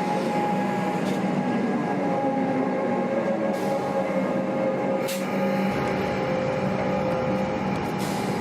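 Train running, a steady hum and rumble with a few sharp clicks.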